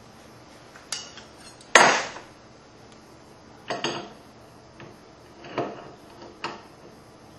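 Metal tools and parts handled and set down on a reloading bench: a handful of separate clinks and knocks, the loudest about two seconds in with a brief ring after it.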